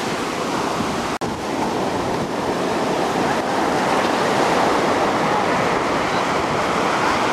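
Ocean surf breaking and washing up the beach, a steady loud rush of water, with a brief cut-out about a second in.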